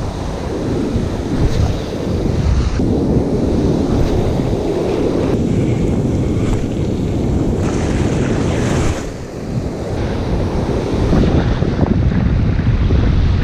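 Ocean surf breaking and washing in the shallows around the feet, with wind buffeting the microphone.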